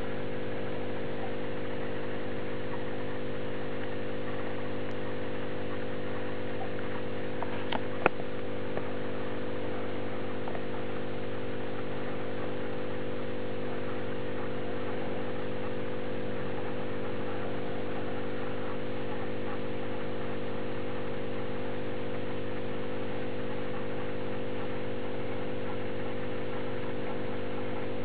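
Steady electrical hum from an aquarium pump, unchanging throughout, with one brief sharp click about eight seconds in.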